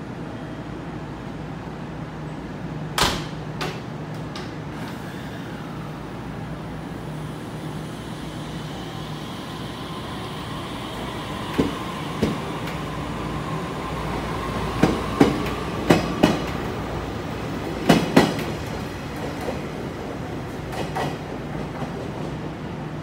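JR Kyushu 819 series DENCHA battery-electric train pulling out. A steady hum while it stands, then a sharp knock about three seconds in. From about nine seconds a whine rises as the train accelerates, and a run of wheel clacks over rail joints follows between about twelve and eighteen seconds, tailing off as it moves away.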